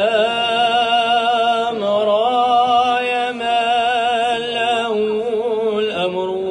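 A man sings an unaccompanied Moroccan Sufi madih chant into a microphone, drawing out long melismatic notes that waver in pitch, over a low steady tone. Near the end the phrase breaks and a new, lower line begins.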